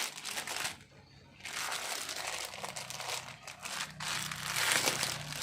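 Packaging being crinkled and rustled by hand as a parcel is opened, with a short pause about a second in.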